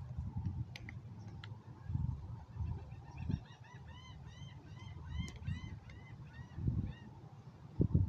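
A bird calling in a quick run of short rising-and-falling notes, about four a second, starting a couple of seconds in and lasting about four seconds, over low buffeting of wind on the microphone with a few sharp clicks.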